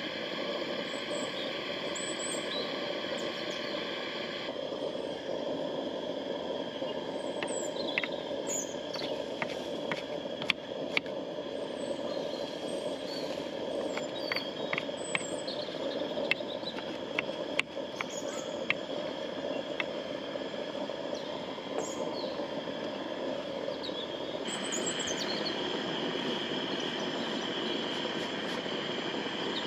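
Outdoor ambience: a steady rushing noise with short high bird-like chirps over it, and a scatter of sharp clicks in the middle of the stretch.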